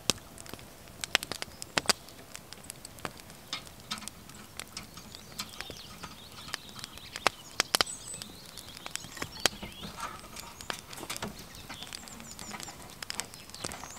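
Scattered sharp clicks and light knocks from a brass oil lantern being handled and worked on.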